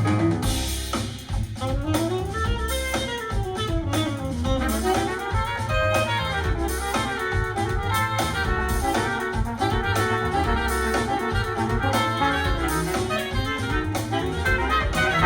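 A contemporary jazz track with drums and bass under a melodic lead line, played back through KEF Q Concerto bookshelf speakers and a subwoofer driven by a Yamaha R-N800A receiver.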